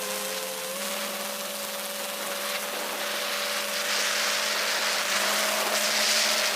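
FPV quadcopter's brushless motors and propellers whining at a fairly steady pitch, stepping up slightly about a second in, with a rush of air that grows louder in the second half.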